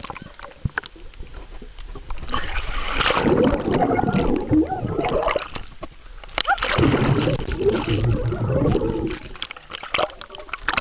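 Swimming-pool water splashing and sloshing around a camera moving in and out of the water, in two long bouts starting about two and six and a half seconds in, with small pops and clicks between.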